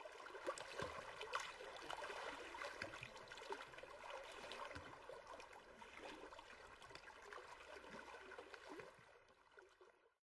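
Faint water lapping and trickling, with small splashes and gurgles, fading out near the end.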